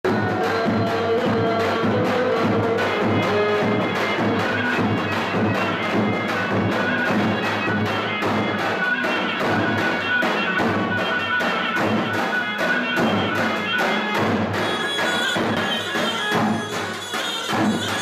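Davul drums beating a steady rhythm under a zurna's melody: the drum-and-shawm music played for dancing at Turkish weddings.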